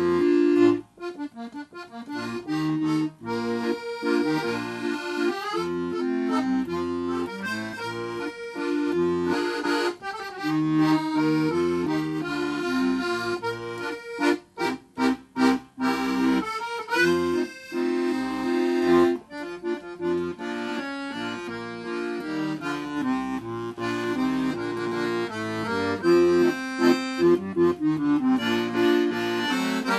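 Piano accordion played solo: a melody over sustained chords, with a run of short, detached chords about halfway through.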